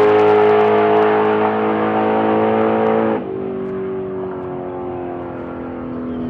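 A 2016 Mopar Drag Pak race car's engine running hard at a steady high pitch, then, about three seconds in, dropping suddenly in pitch and loudness and winding slowly down as the car comes off the throttle at the end of its pass.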